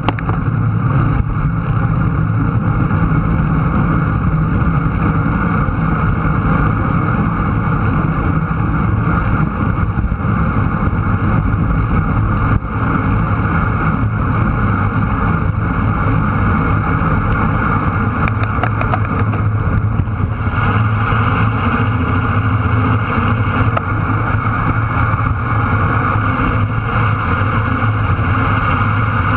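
Motorcycle engine running steadily at road speed, with rushing wind noise over the microphone.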